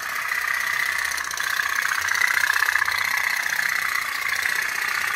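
Candle-heated tin pop-pop toy steamboat running, its boiler giving a fast, steady 'tuk tuk tuk' putting as it pushes the boat around a tub of water.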